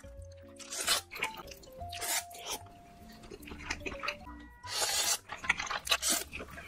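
Soft background music with held melodic notes over a bass line, mixed with close-miked eating sounds: wet mouth clicks and chewing, and a louder noodle slurp about five seconds in.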